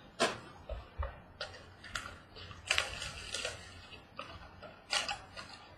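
Scattered short clicks and light rustles, about one a second, from trading card boxes and packs being handled and opened.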